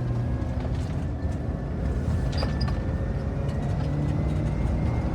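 Tour van driving on a winding mountain road: a steady engine hum and road rumble, with a couple of faint clicks about halfway through.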